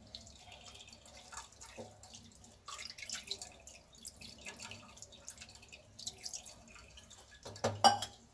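Water poured from a small steel bowl over fresh chhena curds in a cloth-lined strainer, splashing and dripping through the cloth in short, uneven pours, louder near the end. This is the rinse that washes the lemon juice out of the curds.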